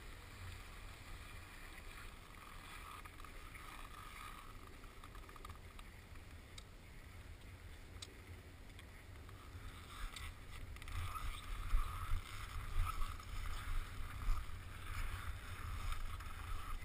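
Wind buffeting a GoPro helmet camera, heard as a low, uneven rumble. It gets gustier and louder about two-thirds of the way through.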